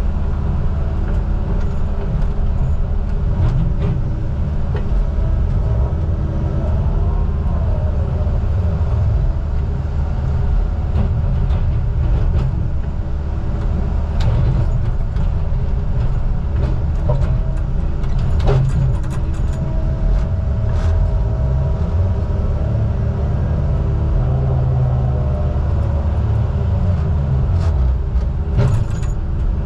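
Heavy diesel logging machinery running steadily, with a few sharp knocks and clanks now and then.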